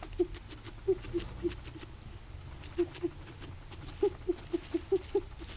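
Guinea pig making short, repeated wheezing sounds in runs of several at about four a second, with a brief pause between runs.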